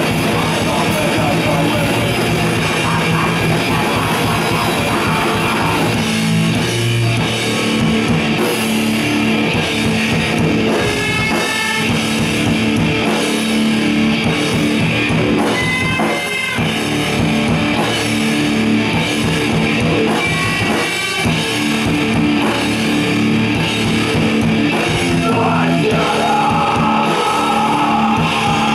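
Live rock band playing loud: electric guitar and drum kit, with a singer's voice coming in and out over them.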